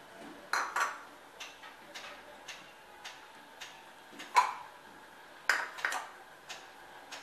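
Light clinks of a cup and hand knocking against a glass mixing bowl as flour is added, louder a couple of times near the start and twice more past the middle. Under them runs a faint regular ticking, about two ticks a second.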